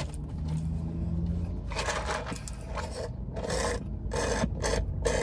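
Water drawn up through a drinking straw from a paper cup: a series of short, raspy slurps about every half second, starting near the second second.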